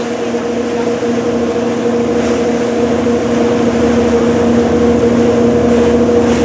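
Boat engine droning steadily, heard from on board: a constant, even-pitched hum over a steady rushing noise, growing slightly louder.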